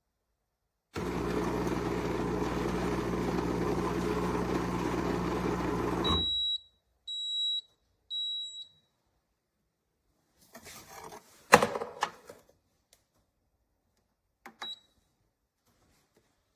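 An espresso machine's pump runs with a steady buzz for about five seconds, then cuts off, and the machine beeps three times about a second apart. Later come a few sharp clicks and knocks, then another click with a short beep.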